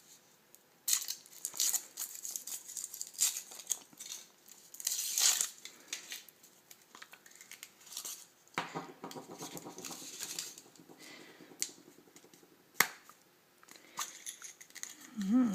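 Foil wrapper of a Kinder Surprise egg crinkling and tearing in bursts as it is peeled off, then handling noise and one sharp click about three-quarters of the way through.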